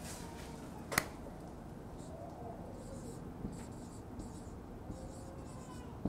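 Marker writing on a whiteboard: a single sharp click about a second in, then a run of short, faint, scratchy pen strokes.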